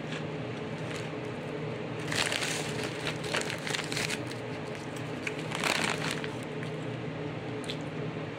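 Crunching and crinkling from a bag of fried pork rinds being eaten, in bursts about two to four seconds in and again near six seconds, over a steady low hum.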